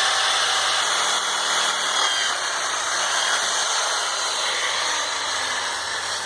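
Electric power tool running steadily as it cuts into the wood of a birdhouse.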